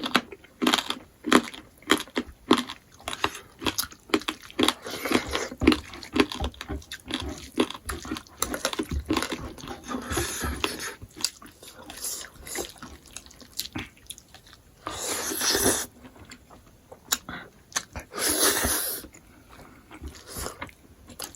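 Close-up chewing and biting of smoked pork, with many short wet clicks and smacks. Two longer, louder noisy sounds of about a second each come about two-thirds of the way through and again shortly after.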